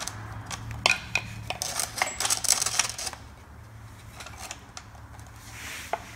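Quick plastic clicks and rattles as a halo ring is pulled back out of a headlight housing, dense for about the first three seconds, then a few scattered taps over a low steady hum.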